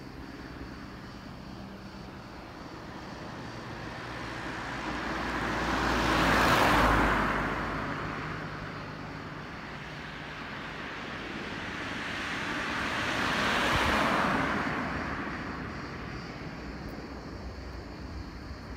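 Two vehicles passing by one after the other, each a rush of noise that rises and fades over a few seconds; the first, about six seconds in, is the louder, the second comes about seven seconds later.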